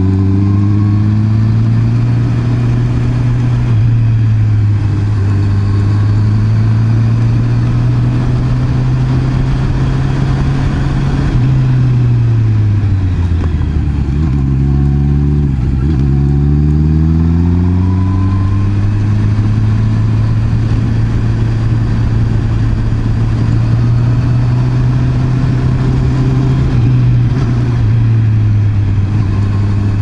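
Honda CB650R's inline-four engine running at steady cruising revs, with wind and road noise. About halfway through the engine note falls, then rises again as the throttle is opened.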